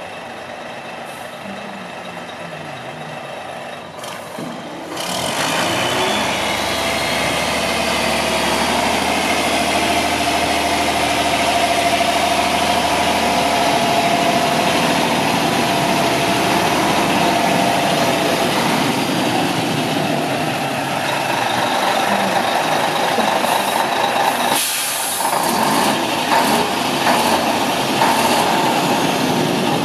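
Diesel engine of a 2001 Mack CH612 day cab tractor running steadily, much louder and closer from about five seconds in. A short burst of air hiss comes about two-thirds of the way through.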